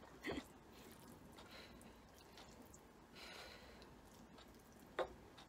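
Quiet eating at a plate of noodles: a short soft sound at the start, a faint breath about three seconds in, and a single sharp click of chopsticks against the plate near the end.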